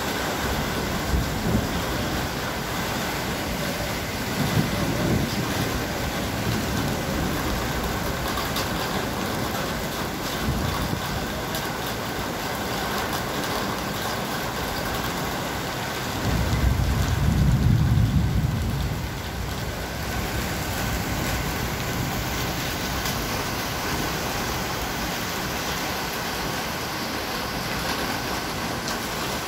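Heavy rain pouring steadily onto a street, pavement and parked cars. Low rumbles rise under it about four seconds in and, louder and lasting about three seconds, around seventeen seconds in.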